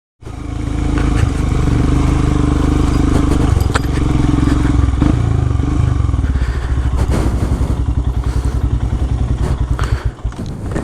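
Royal Enfield Himalayan's single-cylinder engine running under the rider while riding a rough off-road trail, with some clatter from the bike over the ground. In the second half the engine settles into slow, even firing beats.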